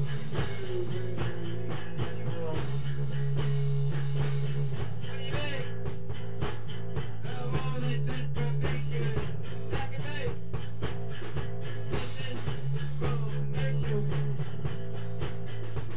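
A live rock jam with guitar, sustained bass notes that change every few seconds, and a steady percussive beat of about four hits a second.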